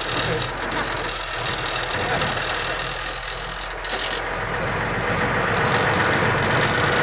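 A vehicle's engine running steadily while under way, with a low throb and a broad rushing noise over it. It grows a little louder over the last few seconds.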